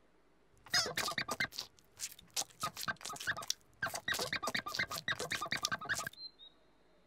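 A sponge squeezed over and over in the hands, giving a rapid, irregular run of short squishy squeaks that stops suddenly near the end.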